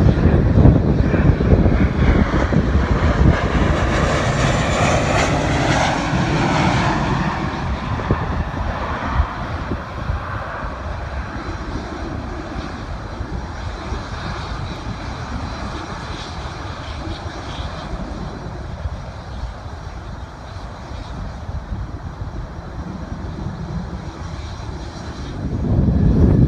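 An airliner's engines pass close by, loud at first, with a sliding, swooshing pitch as the plane goes over, then fading to a distant rumble. A loud rush of noise comes back just before the end.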